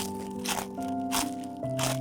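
Background music of held, steady notes with a crisp, crunchy percussive hit about every 0.6 s.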